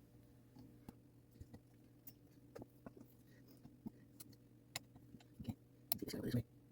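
Faint, irregular small clicks and taps of clock movement parts being handled as the time train is fitted between the plates, over a low steady hum. A louder clatter of handling comes near the end.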